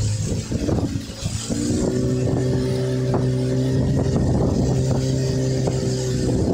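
Speedboat engine running under way, its hum stepping up in pitch about a second and a half in as it picks up speed, over a steady rush of wind and water.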